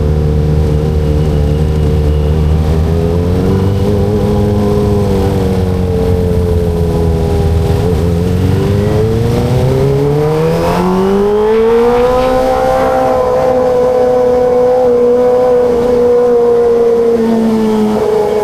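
Kawasaki ZX-25RR's 249 cc inline-four engine running on the move. Its pitch rises and falls with the throttle: a dip about eight seconds in, then a steady climb to high revs that holds, easing slightly near the end.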